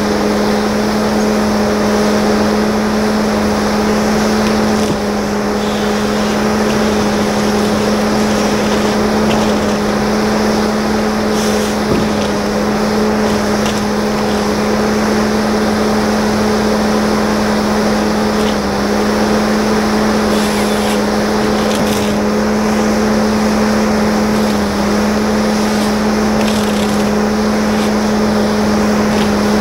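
Diesel engine of a forestry machine running at steady working revs, a constant even hum with no change in pitch.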